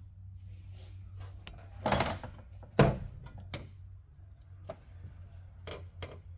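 Hand-work noises from fitting vacuum hose parts: a short rustle about two seconds in, a sharp knock just under three seconds in, then several lighter clicks. A low steady hum runs underneath.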